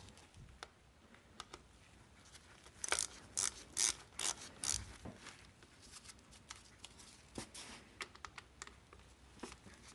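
Socket ratchet clicking in short bursts while loosening the 8mm distributor cap bolts. The clicks are quick and light, densest a few seconds in and sparser later.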